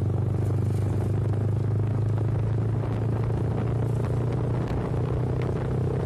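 Small motorbike engine running steadily at cruising speed, heard from on the bike, with road noise underneath.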